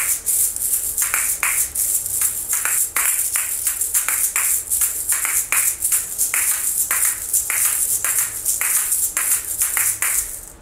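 A pair of plastic asalato (kashaka) swung and flicked in a fast, steady rhythm: the two shells clack together sharply several times a second over a continuous hiss of the seeds rattling inside. The playing stops near the end.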